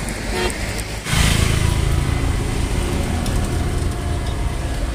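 Gas stove burner running under a saucepan of tea, a steady low roar that starts suddenly about a second in.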